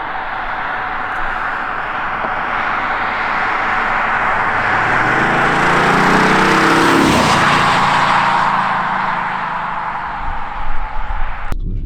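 Audi S7 TDI's 3.0-litre V6 diesel driving past: tyre and engine noise grow to a peak about seven seconds in, the engine note dropping in pitch as the car passes, then easing off. The sound cuts off abruptly near the end.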